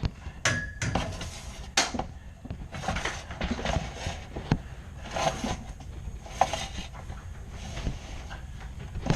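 Dryer vent cleaning brush on flexible rods being pulled back by hand through a lint-clogged vent duct: irregular scraping and rubbing with scattered clicks and knocks.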